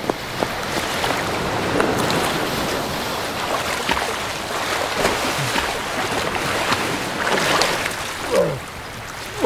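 Running footsteps splashing through shallow water at the shoreline, over the wash of the surf, with a man's short falling grunt near the end.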